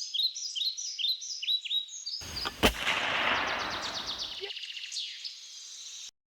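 Birds chirping in a quick repeating pattern. About two and a half seconds in, a single sharp crack inside a burst of rushing noise that dies away over about two seconds, with light fast ticking after it until the sound cuts off abruptly.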